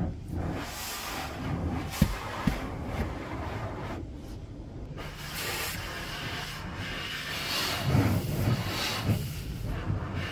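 Car wash heard from inside the car: water and foam spraying and scrubbing against the windows and body, rising and falling. There are two sharp knocks about two seconds in, and a heavier rumble near the end.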